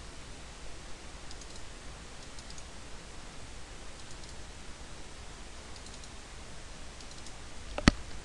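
Computer mouse double-clicks, faint and in pairs about every second or so, each one recording a tool position in the CAM program, over a steady low room hum. A sharper, louder click comes near the end.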